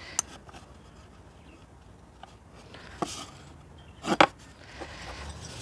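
Faint handling sounds of a marking gauge being set against the edge of a 6 mm MDF sheet: a light click, a brief rub about three seconds in, and a short sharp knock about four seconds in.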